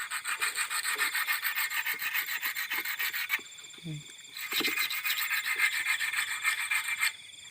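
Rapid scratchy rubbing or rasping, many strokes a second, in two stretches of about three seconds with a short pause near the middle. Steady insect chirring runs behind it.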